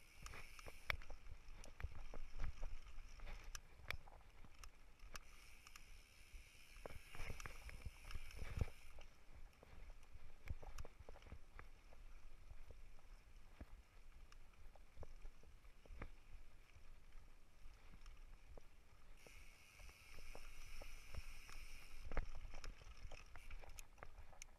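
Mountain bike riding over a dirt singletrack trail: tyres rolling on the dirt with frequent rattles and knocks over bumps. Stretches of louder hiss come and go, loudest about 5 to 9 seconds in and again near 19 to 22 seconds.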